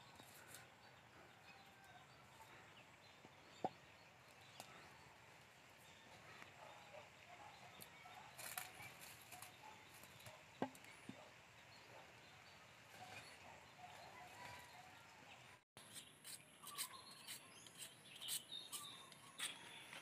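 Near silence: faint outdoor ambience with a few soft, isolated clicks and knocks.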